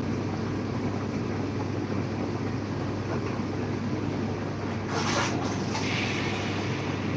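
An espresso machine's steam wand lets out a loud hiss of steam about five seconds in, lasting about a second, over a steady low hum.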